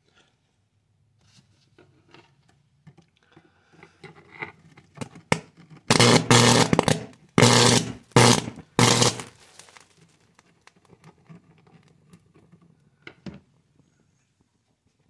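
Electronic circuit board arcing and burning: scattered crackles and pops, then three loud buzzing, sizzling bursts of arcing about six to nine seconds in, before it settles back to faint crackling.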